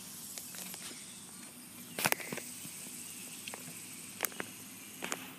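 Quiet outdoor background with a faint steady hiss, broken by a few sharp clicks: a double click about two seconds in, then single ones near the end.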